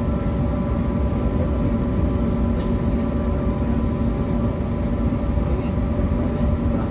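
Cabin noise inside an Airbus A320neo with its engines running: a steady low rumble under several even, unchanging hums, with no rise in pitch.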